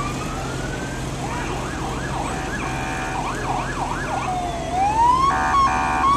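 Electronic emergency-vehicle siren changing modes: a rising wail, then a fast yelp about two seconds in, then another rising wail. Two short, loud blasts of its electronic horn come about five seconds in and are the loudest part.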